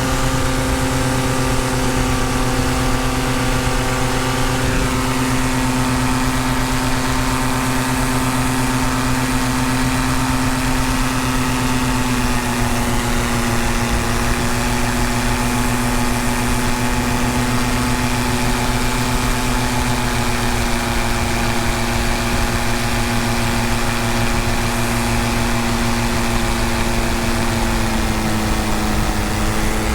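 Paramotor engine and propeller running steadily at cruise power, with wind rush. Its pitch eases slightly lower about halfway through.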